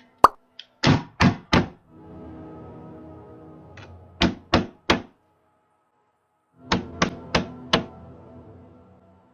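Knocking on a door in three bursts of three to four hard knocks, a few seconds apart, over quiet background music.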